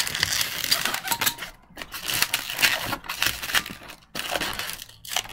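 Black 260Q latex modelling balloons being twisted and handled: the latex rubs and creaks against itself and the hands in a run of quick scratchy squeaks, with a few brief pauses.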